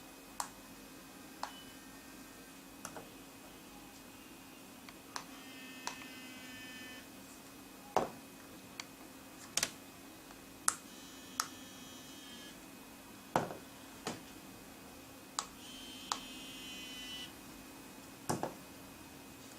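Plastic button clicks and three electronic beep chimes, each lasting about a second, from SINGCALL APE6800 pager receivers being called from the APE350 five-button call transmitter. A faint steady hum runs underneath.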